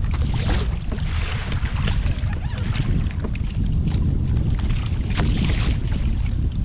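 Strong wind buffeting the microphone in a steady low rumble, with water irregularly slapping and splashing against a kayak hull.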